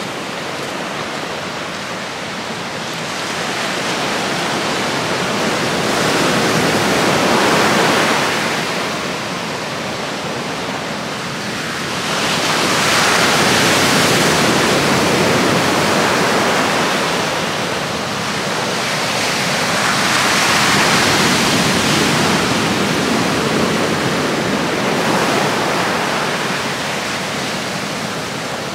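Heavy surf breaking on the shore: a steady rush of waves that rises and falls in three long surges.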